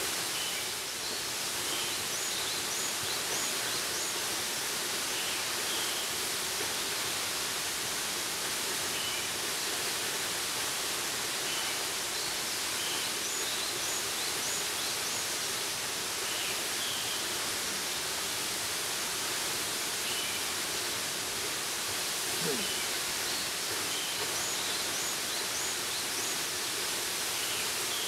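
Steady rushing of a waterfall, a dense even hiss that never lets up. Small groups of brief high bird chirps come through it three times.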